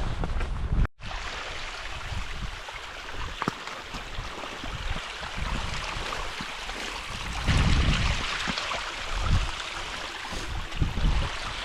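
Strong wind gusting over the microphone in heavy mountain rain: a steady rushing hiss with irregular low buffeting surges, strongest about two thirds of the way through. A short gap just under a second in.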